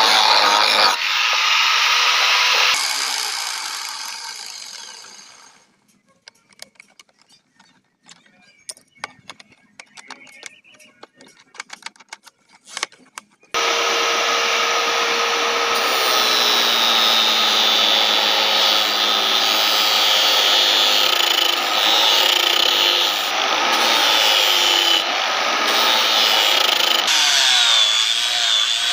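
Electric angle grinder grinding steel, then switched off and spinning down over about three seconds. After several seconds of faint clicks and taps, the grinder starts again about thirteen seconds in and runs steadily to the end, grinding the blade.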